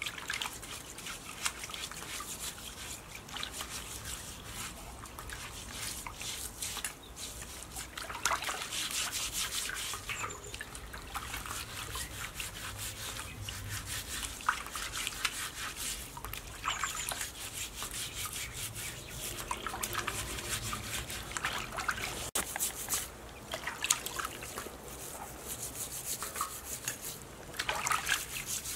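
Steel-wool scourer scrubbing the skin of a pig's trotter, in repeated uneven strokes, with water trickling and sloshing in a steel basin as the trotter is dipped and lifted.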